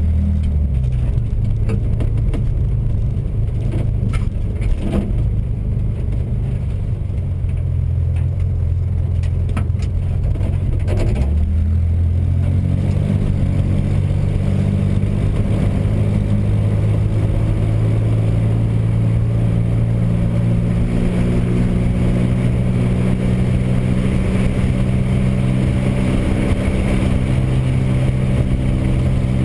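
The air-cooled, rear-mounted flat-six of a 1961 Chevrolet Corvair Rampside running under way, heard from inside the cab, with a few clicks and rattles in the first eleven seconds. About eleven seconds in the engine note breaks and drops, then climbs slowly as the truck picks up speed.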